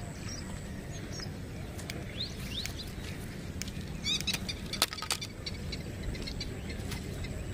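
Birds chirping in short, quick calls every so often over a steady low background noise, with two sharp clicks about five seconds in.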